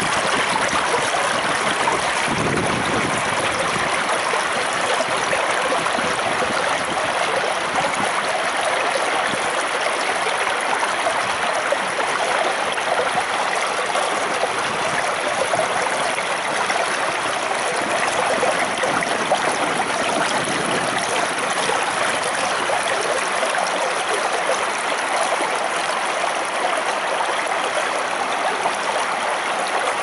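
Shallow stream water rushing and splashing over rocks, heard close up: a steady, even babble.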